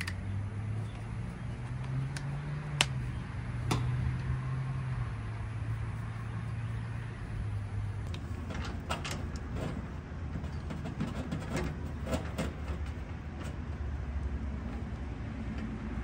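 Goodman heat pump's outdoor unit running with a steady low hum, back in operation after its disconnected low-pressure switch connector was reconnected. Scattered sharp clicks and taps sound over it, most of them in the second half.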